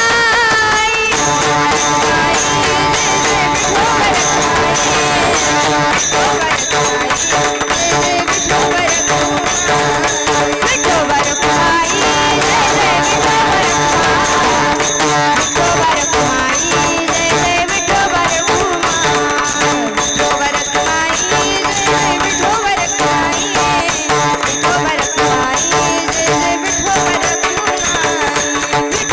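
Warkari bhajan music: small hand cymbals and a drum keep up a fast, steady beat under sustained held tones, with no words sung clearly.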